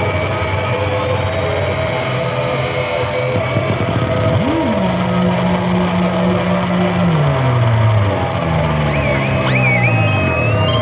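Experimental noise music: a dense, steady wall of hiss and hum with droning tones. About four seconds in, a low tone swoops up, holds, then slides downward in steps. Near the end, thin high whistling tones wobble and step upward.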